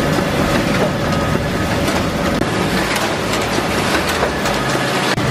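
Steady, loud mechanical running and rattling of an industrial bread-packaging line, with conveyors and the bagging machine clattering with many small clicks.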